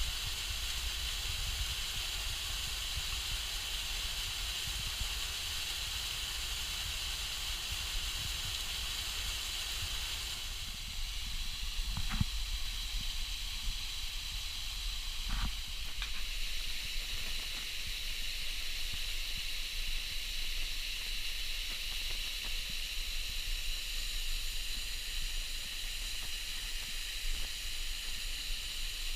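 Steady hissing rush of water pouring over a small waterfall, with two faint knocks around the middle.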